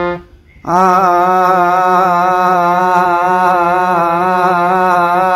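A man singing a long, sustained "aa" with a slight waver in pitch, over a steady held harmonium note, as vocal riyaz. It starts after a brief break of about half a second near the beginning.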